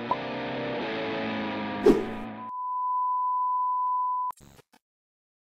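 Short outro music sting with a sharp hit about two seconds in, then a steady 1 kHz test-tone beep of the kind that goes with TV colour bars, which cuts off suddenly into a brief burst of noise.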